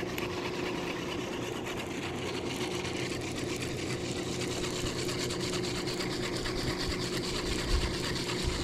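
Baitcasting reel being cranked on a steady retrieve: a continuous whirring buzz of its gears, close up.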